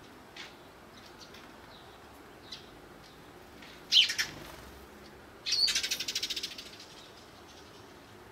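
Eurasian tree sparrow chirping with a few faint short chirps, then one loud sharp chirp about four seconds in. About a second and a half later comes a quick rattling run lasting about a second that fades out.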